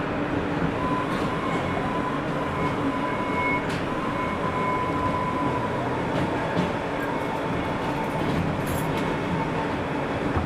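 New York City subway train (N train) running along the elevated track, heard from inside the car: a steady rumble with a faint, even high whine.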